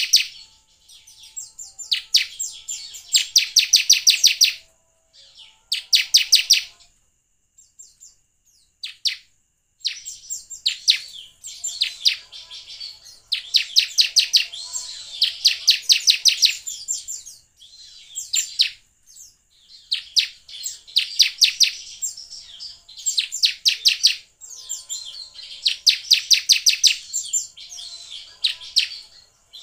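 Bar-winged prinia (ciblek) singing: fast runs of sharp, high repeated chip notes, each run lasting a second or two, again and again with short pauses between.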